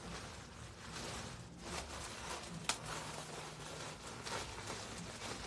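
Rustling and handling of clothing and packaging as garments are taken out of a shipping box, with one sharp click about two and a half seconds in.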